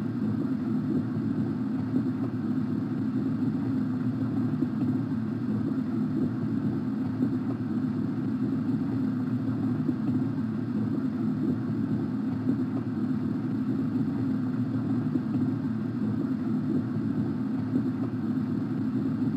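Steady low rumble with a faint hum from a Factory I/O tank simulation, as water pours from the fill valve into the tank.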